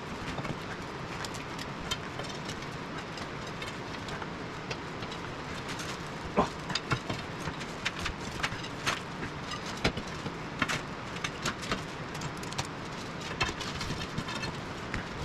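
Scattered, irregular clicks and clanks of hand tools and metal parts being worked on a skid steer's track undercarriage, over a steady background noise.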